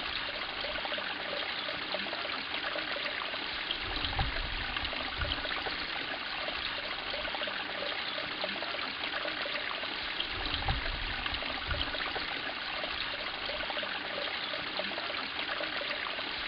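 Water running steadily into a koi pond, a continuous trickling splash, with a few brief low rumbles now and then.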